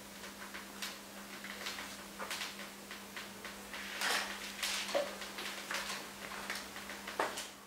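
Irregular clicks and knocks, some sharper and louder around the middle, over a steady low hum.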